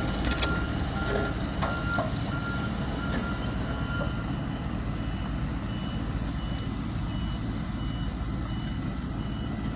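Bulldozer diesel engines running under load with a steady low rumble, while reversing alarms beep about twice a second: a lower-pitched alarm stops about four seconds in and a higher-pitched one starts soon after, as the machines back up.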